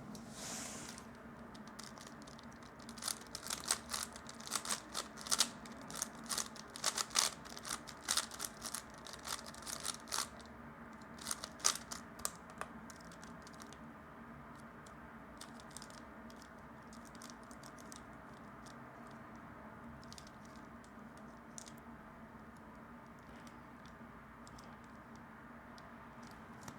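Plastic 3x3 speed cube being turned by hand, a quick run of clicking, rattling turns for several seconds, then slower, scattered turns.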